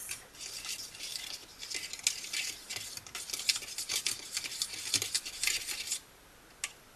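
A small plastic spoon stirring soup powder into a little water in a thin plastic tray, with quick light scrapes and clicks against the tray's sides and bottom. The stirring stops near the end.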